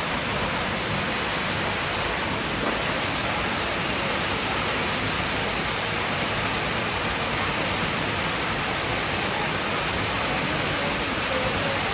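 Waterfall rushing, a steady even roar of falling water with no breaks.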